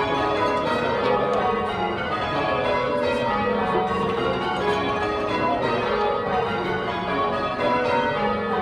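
Ring of ten church bells cast by John Taylor, rung full circle in rounds and call changes: a steady, continuous run of overlapping bell strikes, one bell after another.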